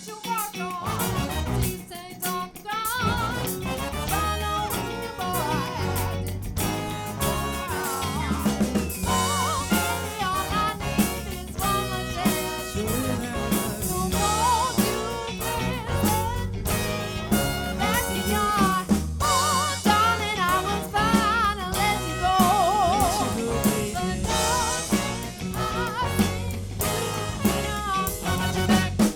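Live soul band playing a song: drum kit and bass keep a steady groove under guitar, and a wavering lead melody line runs over the top.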